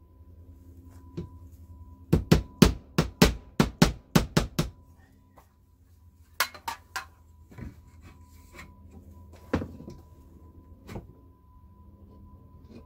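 Hammer driving a nail into a fiber-cement siding plank: a quick run of about ten strikes, roughly four a second, followed by a few slower, scattered taps.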